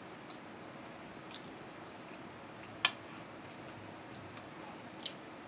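Quiet chewing with small wet mouth clicks, and one sharp clink of a metal fork set down on the plate about three seconds in.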